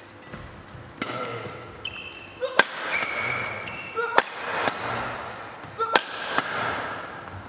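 Badminton rally: a racket strings hitting a shuttlecock with sharp cracks every second or so, trading back and forth, and court shoes squeaking briefly on the floor between shots.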